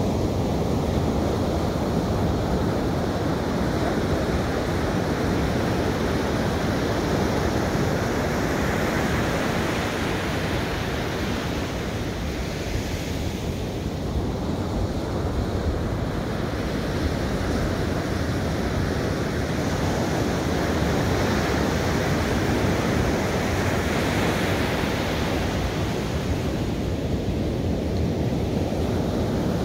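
Ocean surf breaking and washing up a sandy beach: a steady rush that swells and eases as each wave comes in, with wind buffeting the microphone.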